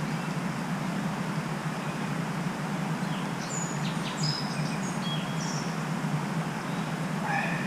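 Several small birds chirping in short high notes, about three to five and a half seconds in, over a steady outdoor rushing background.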